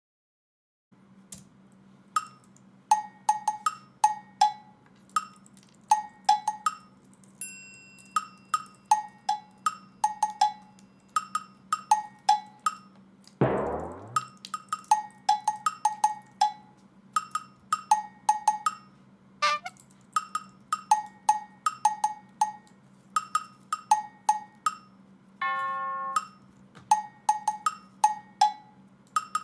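Background music: a light percussive tune of short, bright pitched strikes, about two a second, over a steady low hum, with a long falling swoop about halfway through and a brief held tone near the end.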